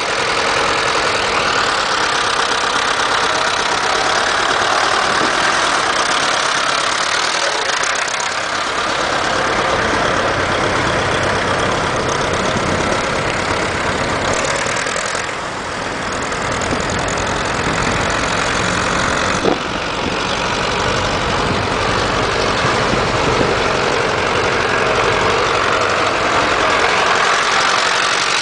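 Fiat 780 tractor's diesel engine running steadily while the tractor is driven around. It grows fainter about halfway through as the tractor moves away, then louder again as it comes close. A single sharp click comes about two-thirds of the way through.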